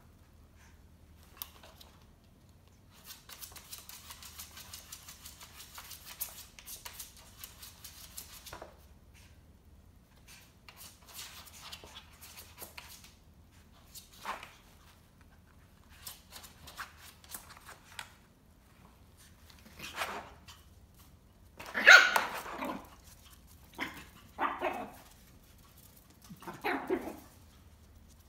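Shih Tzu puppy scuffling about on an artificial-grass tray, then giving a few short barks in the second half, the loudest about three-quarters of the way through.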